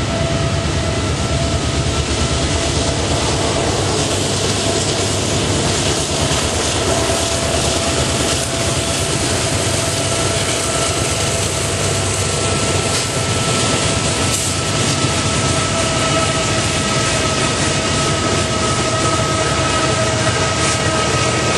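Norfolk Southern diesel locomotives hauling an intermodal freight train around a curve: a loud, steady rumble of engines and rolling wheels with a steady high whine on top.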